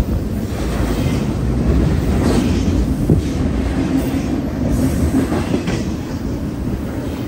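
Double-stack intermodal well cars loaded with shipping containers rolling past close by: a steady rumble of steel wheels on rail, with a clack now and then.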